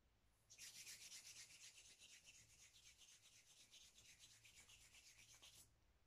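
Palms rubbed briskly together to warm the hands: a dry swishing of quick back-and-forth strokes that starts about half a second in and stops abruptly shortly before the end.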